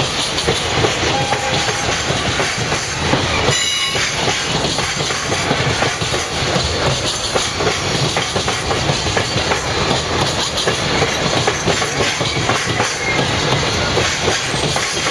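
Freight train wagons rolling past, a steady rumble with the fast clickety-clack of steel wheels over the rail joints and a brief high wheel squeal about three and a half seconds in.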